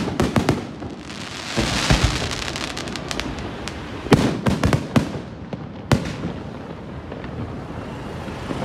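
Fireworks display: sharp bangs of aerial shells bursting, over steady crackling. A cluster of bangs comes right at the start, a spell of dense hissing crackle about two seconds in, another cluster of bangs about four to five seconds in, and a single bang near six seconds.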